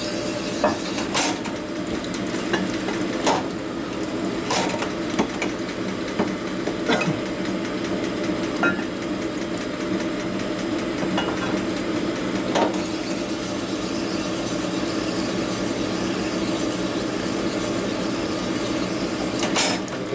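Steady hum of a shop machine's motor, with a few scattered sharp metallic clinks and knocks from metal parts being handled.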